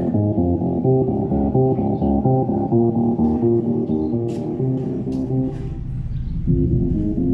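Bass-heavy car-audio music played through a DIY 8-inch subwoofer box: a rhythmic bass line whose sound sits almost wholly in the low notes, with hardly any treble. It dips briefly about six seconds in, then carries on. The builder finds its bass soft rather than punchy.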